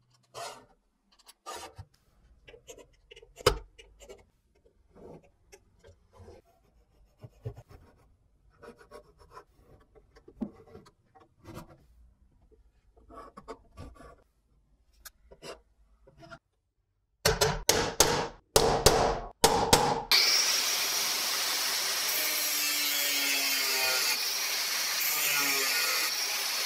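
A steel scriber scratching lines onto steel plate along a steel rule, in short separate strokes. About seventeen seconds in come a few short loud bursts, then an angle grinder with a cutting disc runs steadily, cutting the steel plate.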